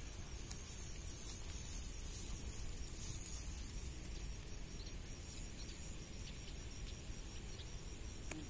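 Quiet outdoor ambience: faint steady high-pitched insect chirring over a low rumble of wind on the microphone.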